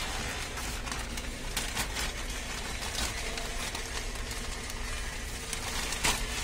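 Thin plastic bag crinkling and rustling as hands work at tearing it open, with a few sharper crackles, the loudest near the end.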